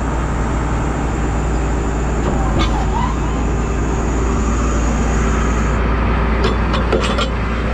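Combine engine running steadily, with a high whine that stops about six seconds in and a few sharp clicks near the end.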